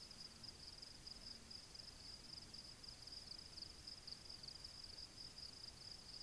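Near silence: a faint, steady high-pitched trill over low hiss, cutting off abruptly near the end.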